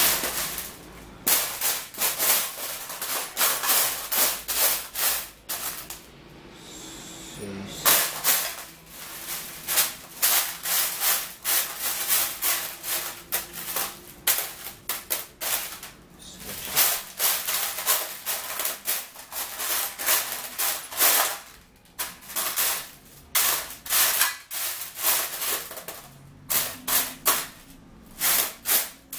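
Metal screws and small drawer fittings clattering and clinking in an aluminium tray as they are stirred and picked through by hand: a dense run of clicks with a couple of short pauses.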